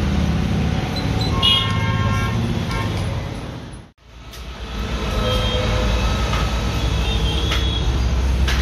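Road traffic: vehicle engines running with short horn toots over them. The sound cuts out abruptly about four seconds in and starts again a moment later.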